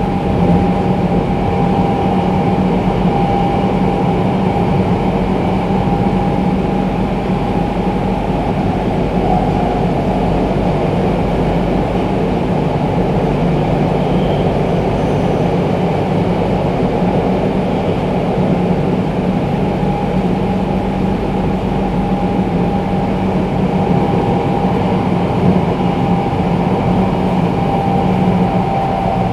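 Tokyo Metro 02 series VVVF subway train running, heard from inside the car: a steady rumble with a high whine held throughout, the whine falling slightly near the end.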